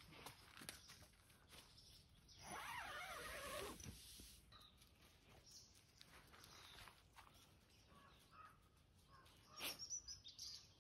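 Near silence, broken about two and a half seconds in by a faint animal call lasting about a second that falls in pitch, then a few faint clicks near the end.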